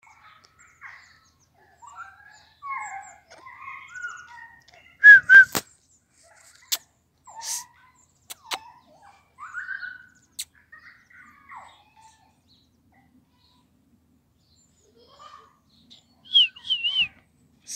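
Scattered short, high chirping and whistle-like notes, with a loud pair of notes about five seconds in, a few sharp clicks, and a quick run of three wavering notes near the end.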